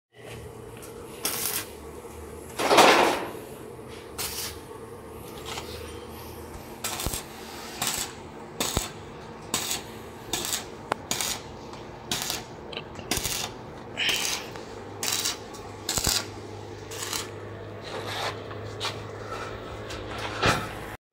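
A series of short, sharp metallic clinks from steel being worked, roughly one a second, with a louder, longer burst about three seconds in, over a steady low hum.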